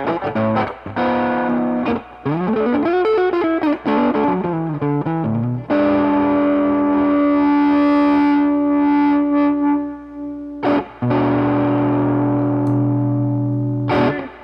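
Electric guitar played through a Mesa Boogie 5:25 Express 1x10 tube combo amp on a distorted tone. A run of picked notes, one bent up and back down, gives way to two long sustained chords.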